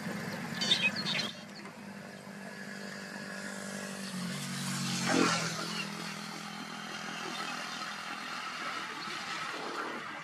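An engine running, its sound changing abruptly just over a second in and swelling to its loudest about five seconds in before settling again.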